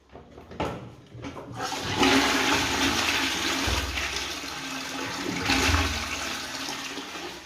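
Toilet being flushed: a few clicks, then about one and a half seconds in a sudden rush of water that runs for several seconds and slowly tails off.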